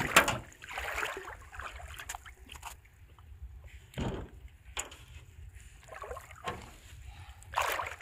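A freshly caught fish slapping and splashing on the wet floor of a metal boat while it is unhooked by hand: a few separate slaps and splashes, the loudest right at the start, over a low steady rumble.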